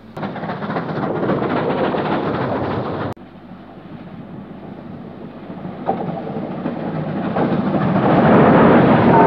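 NSWGR 38 class steam locomotive running along the line, a loud rushing rumble of exhaust and wheels. The sound cuts off abruptly about three seconds in, then builds steadily louder toward the end as another locomotive approaches.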